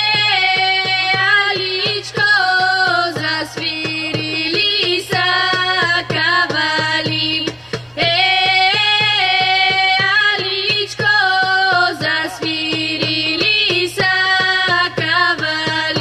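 Two women singing a Bulgarian Pirin folk song in long held phrases whose notes bend at the ends, over a steady beat on a small hand drum.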